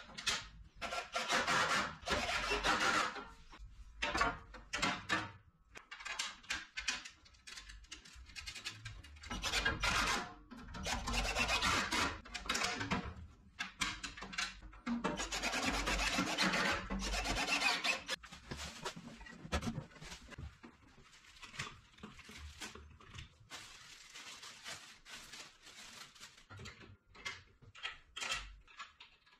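Sheet-steel stand parts scraping and rubbing as they are handled and fitted together, in irregular bursts of one to two seconds.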